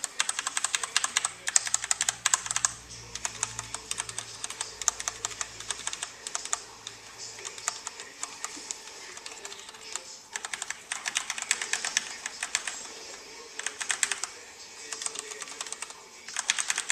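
Fast typing on a Filco Ninja mechanical keyboard with Cherry MX Red switches: quick runs of key clacks broken by short pauses.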